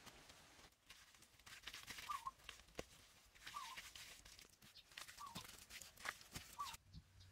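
Soft crackling and tearing as clumps of wet mud mixed with straw are pulled apart and worked by hand. A small bird gives the same short chirp four times.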